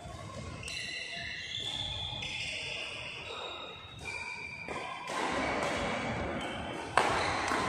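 Indoor badminton court sounds: shoe squeaks, footfalls and voices in a large hall, with one sharp crack about seven seconds in, a racket striking the shuttlecock.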